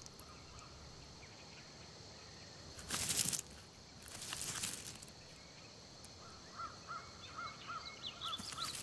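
Faint outdoor nature ambience with two short rustling noise bursts a few seconds in. In the last couple of seconds comes a series of short, evenly spaced chirping calls, about three a second.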